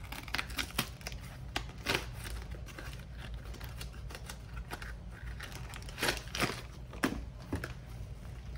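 A cardboard box of gallon freezer bags handled on a tabletop: scattered taps, clicks and rustles as it is picked up and set down, with a few louder scrapes about two seconds in and again around six to seven seconds in. A steady low hum runs underneath.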